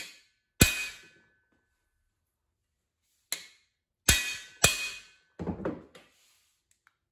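Hammer blows knocking a cam bearing into a Shelby aluminum FE block: about seven sharp metallic strikes, unevenly spaced, each with a short ring.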